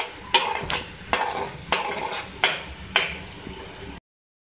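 A spoon stirring chopped onions frying in oil in a metal pot, knocking and scraping against the pan about every half second over a light sizzle. The sound cuts off suddenly near the end.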